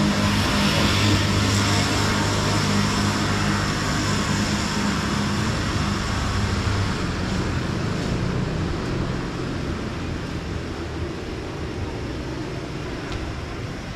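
City street traffic noise: a steady vehicle engine hum over the general rumble of the road, loudest in the first half and easing off after about seven seconds.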